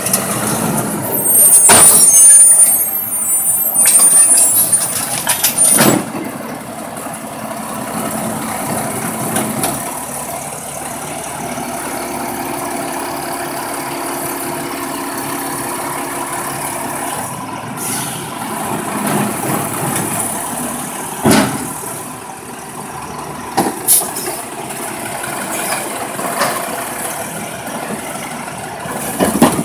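Automated side-loader garbage truck working a wheeled trash cart: a loud high hiss in the first few seconds, then a steady hydraulic whine as the arm lifts the cart up to the hopper, and several sharp clanks as the cart is emptied and set back down. The natural-gas truck's engine runs underneath throughout and carries it away near the end.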